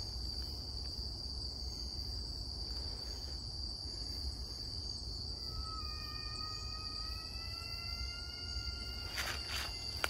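Steady high-pitched insect drone of a night forest, with a long whistle-like animal call starting about five seconds in, held for about four seconds and rising slightly. A couple of footsteps in dry leaf litter near the end.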